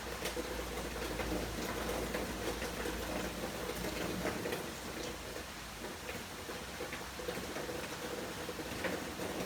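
Steady rain falling, a constant hiss with many small drops pattering and ticking on surfaces. A low rumble underneath fades out about halfway through.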